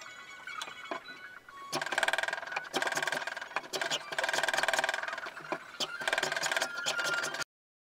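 Metal hand plane taking strokes along a pine block clamped in a vise, shaving the wood in a run of strokes a second or so long with short pauses between them. The sound cuts off abruptly near the end.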